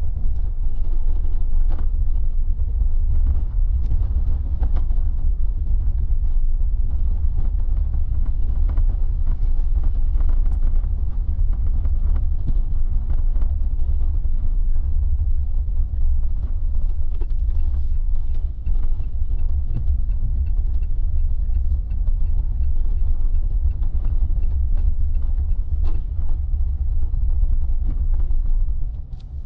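Car cabin road noise: a steady low rumble from the tyres and drivetrain on wet city streets, with scattered light ticks.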